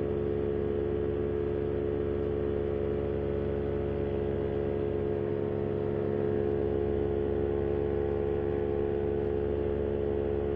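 Vittorazi Moster 185 single-cylinder two-stroke paramotor engine and propeller running steadily at cruise power in flight. The propeller is damaged after a repair failed in flight, and the pilot reports a slight vibration that has not got worse.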